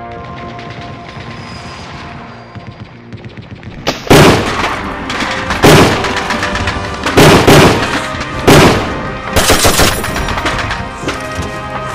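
Film score with sustained tones, then about four seconds in a series of loud gunshots and short bursts of rapid fire, five or so volleys over the next six seconds. The gunfire is a dubbed sound effect.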